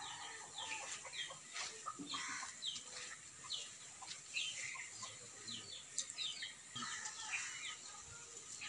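Faint chirping of birds: many short, falling calls, several a second, with a few light clicks among them.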